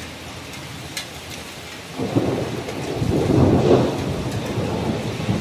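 Steady rain falling, with a roll of thunder that comes in about two seconds in and swells to its loudest a second or so later.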